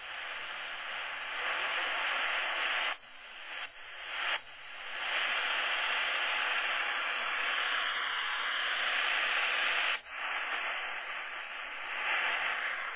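Shortwave static hissing from an Eton Traveler III receiver's speaker, tuned to a memory preset where no station comes through under very poor band conditions. The hiss drops out briefly a few times about three to four seconds in and sharply again about ten seconds in, as the radio is switched between presets.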